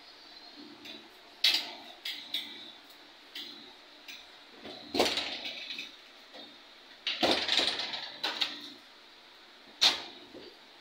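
Aluminium-framed glass door and its metal handle and push bar being handled and wiped: a run of sharp, irregular clacks and knocks, with two longer, noisier stretches about five and seven seconds in.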